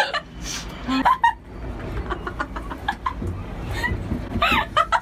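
Two short high, gliding vocal sounds from girls, about a second in and again near the end, over a steady low rumble and a few small clicks.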